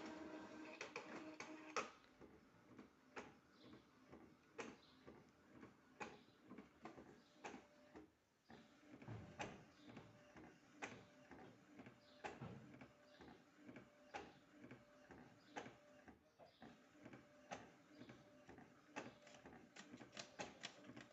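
A small mechanism running with a low hum and irregular clicking and ticking, loudest in the first two seconds.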